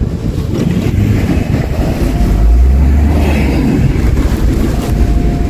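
A car stuck in deep snow being driven to get free: its engine runs with a heavy low rumble that grows louder about two seconds in, and a faint thin steady whine comes and goes, with wind buffeting the microphone.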